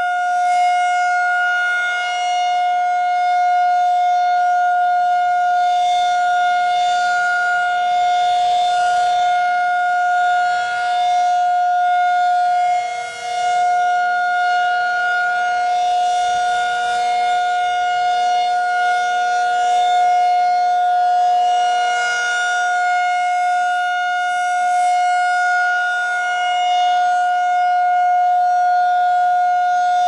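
Federal Signal 2001-SRN electromechanical outdoor warning siren sounding a steady alert tone at a constant pitch. Its horn rotates, so the sound swells and fades slowly as it turns, with a brief dip about halfway through.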